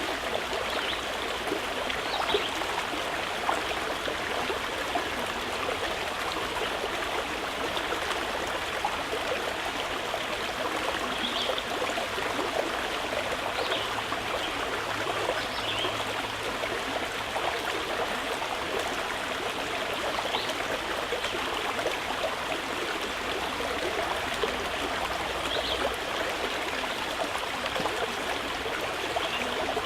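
Stream of water flowing and trickling steadily, with faint short higher blips now and then.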